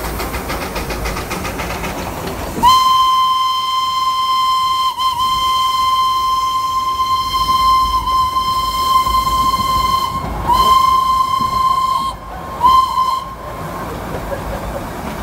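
Darjeeling Himalayan Railway toy train's steam locomotive whistling as the train runs: one long steady blast of about seven seconds, then a shorter blast and a brief toot. The train's running rumble and hiss sound before and after.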